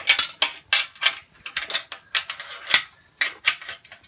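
Spanner tightening the bolts and nuts that join the press's galvanized steel stands: a run of short metallic clicks and clinks, about three a second, as the nut is turned down until it is quite tight.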